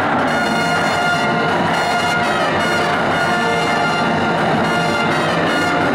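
College pep band playing a tune, led by trumpets and trombones with saxophones, in a run of held brassy chords.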